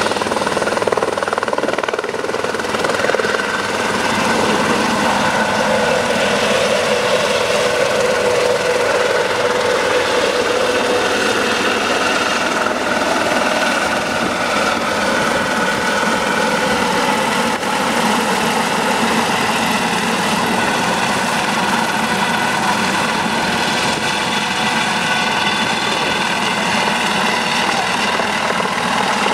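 Medical helicopter lifting off and climbing away: its turbine engine and rotor run loudly and steadily, with a steady turbine whine over the rotor noise.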